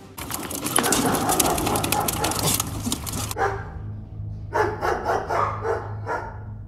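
A dog barking several times over a steady low hum. Before the barking come about three seconds of loud, crackling rushing noise that cut off suddenly.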